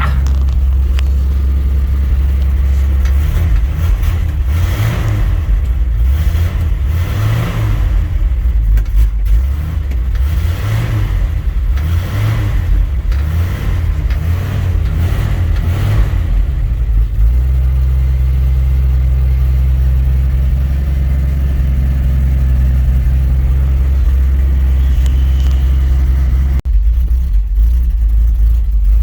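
Dodge D100 pickup engine running just after a hard cold start, revved in repeated surges about every second and a half at first, then settling into a steady idle as it warms up.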